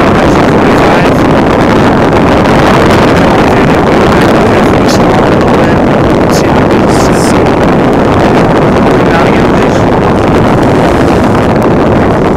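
Steady, loud wind buffeting the microphone aboard a sailboat under way in a stiff breeze, a constant rumbling rush.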